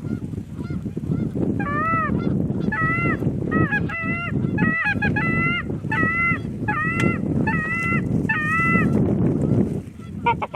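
Canada goose honking: a rapid run of loud honks, each a short up-and-down note, repeated about twice a second, over a steady low rush of wind, with a quick flurry of short clucks at the end.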